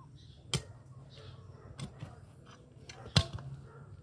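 A long hand-held digging tool striking down into mulched soil to dig a planting hole. Sharp strikes every second or so, the loudest about three seconds in.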